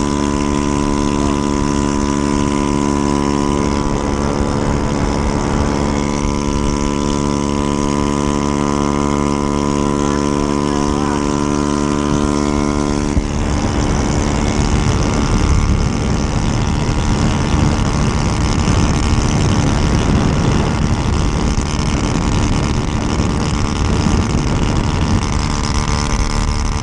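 Honda Ruckus 49cc four-stroke single-cylinder scooter engine running at a steady cruising speed under wind noise. About 13 seconds in, the steady engine note drops away and a rougher rush of wind and passing traffic takes over.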